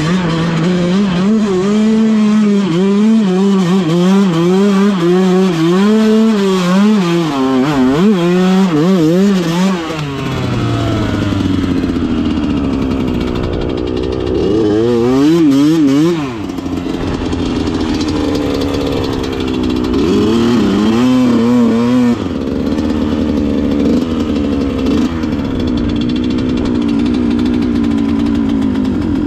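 Yamaha YZ125's single-cylinder two-stroke engine revving hard and changing pitch under riding for about ten seconds, then dropping off to low revs. It is blipped briefly twice, around fifteen and twenty-one seconds in, and then runs steadily at low revs.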